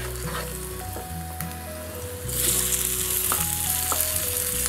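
Hot oil sizzling in a frying pan as boiled potato pieces are tipped in onto cumin and spices. The sizzle grows sharply louder about two seconds in, as the potatoes land in the oil. Soft background music plays underneath.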